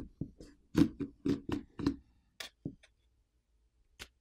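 Plastic back housing catches of a Samsung Galaxy M13 5G snapping loose as a plastic pry pick is run along the seam between back cover and frame. About a dozen short, sharp clicks come in the first three seconds, around four a second, then one more near the end.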